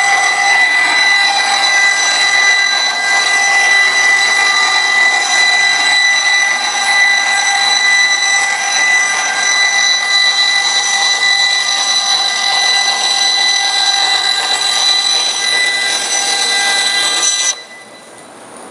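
Vertical-blade bandsaw with 20-inch wheels and a 1-inch blade ripping a structural insulated panel of composite wood skins and urethane foam: a steady, loud whine of several tones over a rasping noise. Near the end the sound drops away suddenly.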